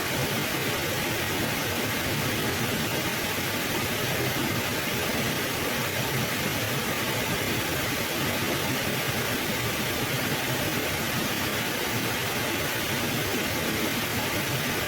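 River water flowing steadily over stones, a continuous even rushing.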